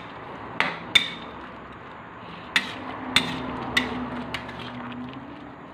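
A metal utensil clicking against a stainless steel pan about six times, each a sharp clink with a short ring, over the low hiss of coconut milk simmering with squash.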